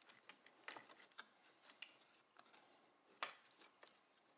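Very faint rubbing and a few small clicks from hands wrapping vinyl electrical tape around a wire splice, with the sharpest click about three seconds in.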